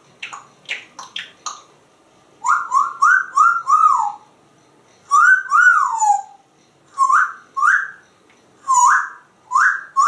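African grey parrot making a quick run of clicking chewing sounds with its beak, then whistling: five quick rising-and-falling notes, a wolf whistle whose second note glides down, and several short rising whistles.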